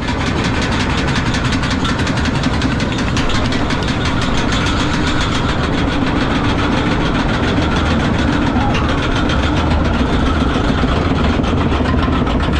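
Log flume ride machinery running under the boat: a steady mechanical clatter of rapid, even clicks over a constant hum, typical of a boat being carried up a chain lift.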